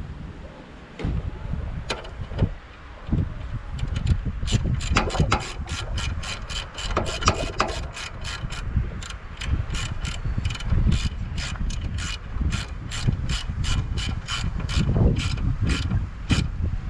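A few knocks of tools, then a hand ratchet wrench clicking in a steady rhythm from about four seconds in, about three clicks a second, as a bolt is worked.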